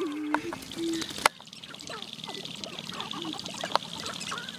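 Male sharp-tailed grouse displaying on a lek: low hooting coos in the first second, over a busy mix of short cackling calls and a fast high rattle. A sharp click comes a little past a second in, and a smaller one near the end.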